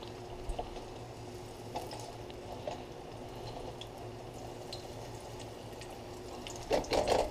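Breaded fish fillets frying in hot oil in a pan: a steady sizzle with a few faint pops, and a short louder noise near the end.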